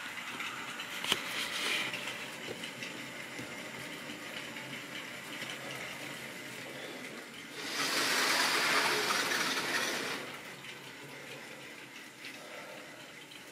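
Model railway trains running on the layout, a steady whirring rush of motors and wheels on track. There is a click about a second in, and the noise grows much louder for about two and a half seconds past the middle.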